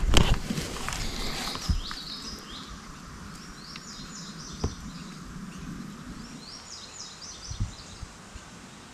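Rustling and handling noise as a rifle is raised in the weeds, loudest at the start, with a few soft knocks. A songbird sings a short phrase three times.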